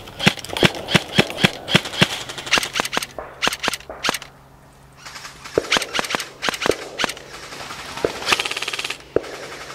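Airsoft guns firing: a rapid string of sharp shots, a brief pause, more scattered shots, then a fast full-auto burst a little after eight seconds.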